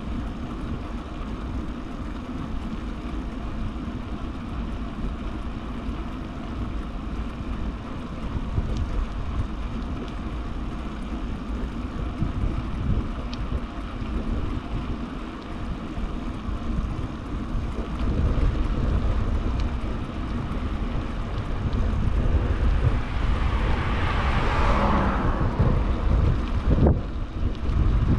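Wind buffeting the microphone of a bicycle-mounted camera, over the steady hum of the tyres rolling on asphalt. A louder rushing sound swells and fades about three-quarters of the way through.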